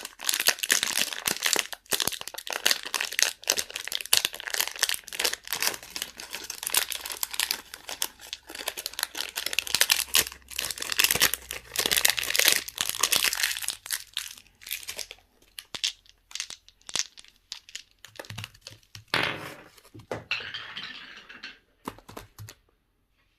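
Candy wrappers being crinkled and torn open, a dense continuous crackle for about fifteen seconds, then sparser rustles before it stops near the end.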